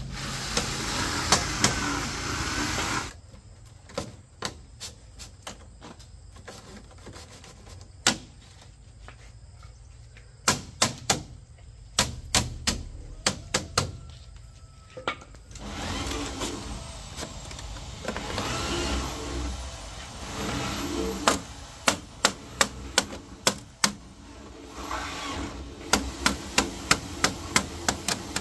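Hammer striking during bamboo fence building: sharp blows, some in quick runs of several strikes, with stretches of steady noise in between.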